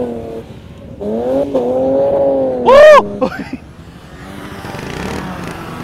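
Car engine revving high and held while drifting, dipping and coming back. About three seconds in there is a short, loud rise and fall in pitch. Then the engine sound fades away.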